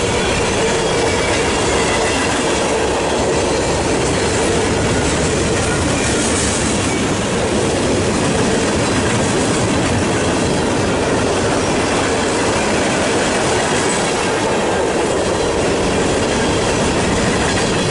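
Freight train cars rolling steadily past at a grade crossing: a loud, continuous rumble and clatter of steel wheels on rail.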